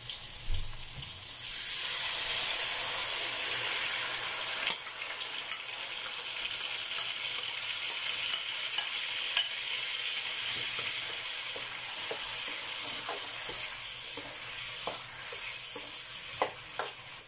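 Sweet and sour sauce sizzling in a hot wok with sautéed vegetables, the sizzle swelling about a second and a half in as more sauce goes in, then holding steady. A spatula stirring in the wok adds scattered sharp clicks and scrapes, more of them near the end.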